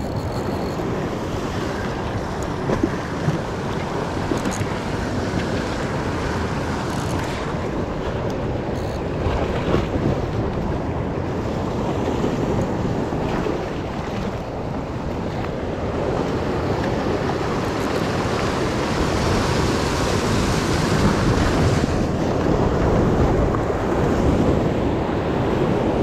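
Ocean surf washing over and around a rock ledge, with wind buffeting the microphone; the wash grows somewhat louder in the second half.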